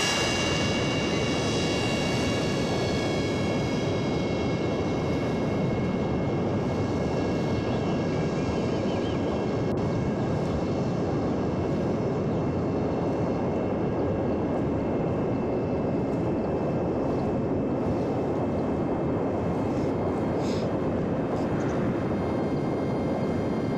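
Homemade electric RC airplane (a 60%-scale FT Explorer) in flight: a steady rush of air with a faint, steady whine from its electric motor and propeller.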